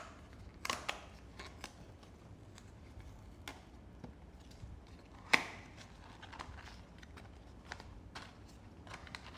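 A blind-box package being handled and opened by hand: scattered light taps and clicks, with one sharp click about five seconds in.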